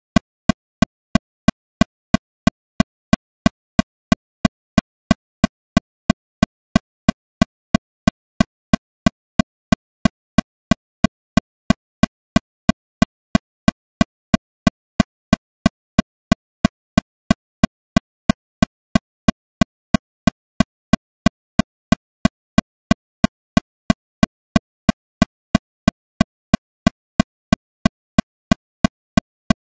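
Metronome clicking steadily at 182 beats per minute, about three short, even clicks a second.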